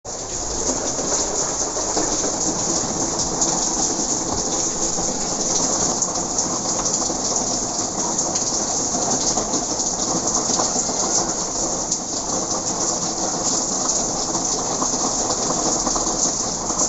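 Drizzle: light rain falling steadily, an even hiss of many fine drops, coming in quickly at the very start.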